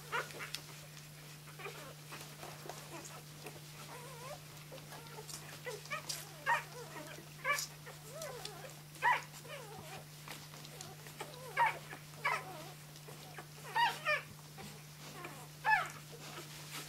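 Three-day-old flat-coated retriever puppies squeaking and whimpering while they nurse: many short, high, wavering squeaks, with a few louder ones in the second half, over a steady low hum.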